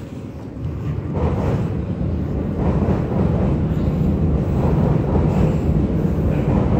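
Approaching New York City subway F train rumbling through the tunnel, growing louder about a second in and then holding steady.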